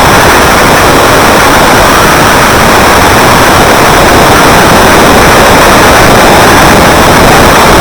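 Very loud, steady, harsh noise like heavy static, with no pitch, rhythm or break.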